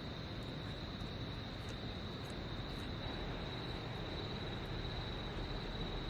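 Steady high chirring of autumn insects such as crickets, one constant high note, over an even background hiss, with a few faint ticks.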